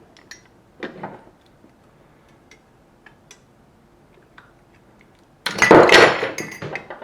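Light clicks and knocks of parts being handled inside a Hitachi Magic Wand's housing. Near the end comes a loud, clattering scrape as the stuck internal part is worked free.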